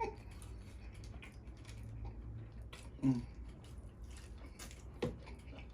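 A person chewing steak with mouth open, faint wet chewing and lip smacks, with two louder smacks about three seconds and five seconds in.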